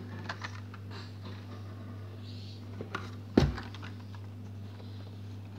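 Plastic blister-carded Hot Wheels cars being handled and pulled from a cardboard case: light clicks and rustles, with one sharp knock about three and a half seconds in, over a steady low hum.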